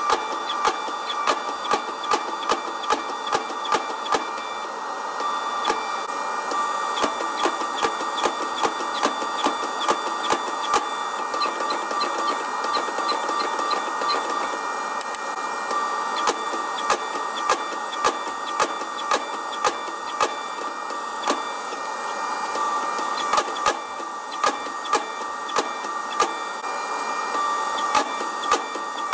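Power hammer running and striking a red-hot steel billet forged from a large ball bearing, flattening it between flat dies: sharp blows about twice a second over the machine's steady hum, pausing briefly a couple of times.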